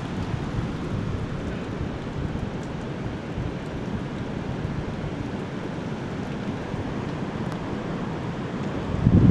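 Strong wind from the outer bands of a hurricane rushing over the microphone, a steady noisy rumble that swells into a louder gust near the end.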